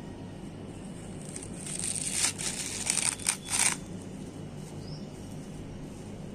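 Dry coconut husk fibre rustling and crackling as a hand pushes it into place as kindling in a brick stove, in a run of short rustles from about one and a half to four seconds in.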